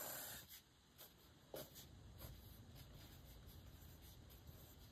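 Faint scratching of a mechanical pencil drawing lines on paper, in a few short strokes.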